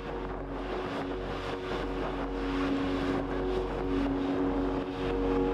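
Steady hum of airport ground machinery with a hiss over it, held on several steady low tones.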